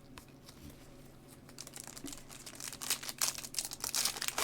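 Foil trading-card pack wrapper being torn open and crinkled, a dense crackling that starts about a second and a half in and grows louder toward the end.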